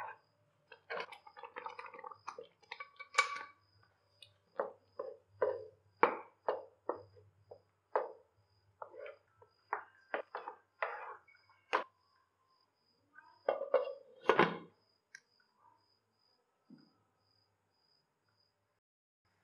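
A spatula stirring and scraping thick, cooked rava pongal in a nonstick pan: a run of short, separate scrapes and squelches, with a louder knock about fourteen seconds in, then quiet.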